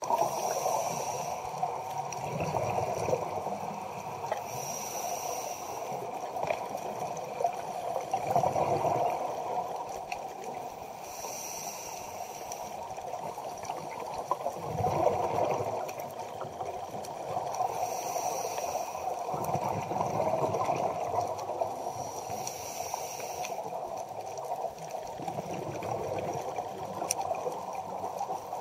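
Scuba regulator breathing heard underwater through a camera housing: a hiss on each inhale, then a rumble of exhaust bubbles, repeating about every six to seven seconds over a steady underwater hiss.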